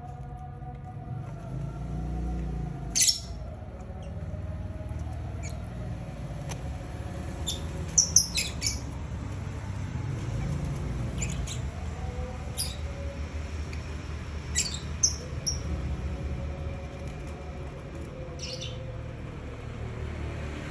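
Lovebirds giving short, sharp, high-pitched chirps, about a dozen scattered through, with a quick run of four or five about eight seconds in.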